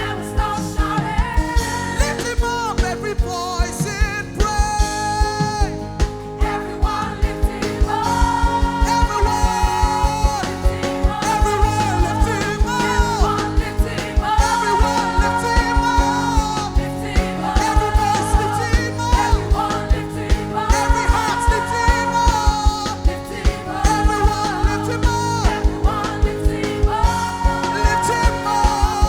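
Live gospel worship music: a worship team singing long, held phrases over a band with a steady, repeating drum beat.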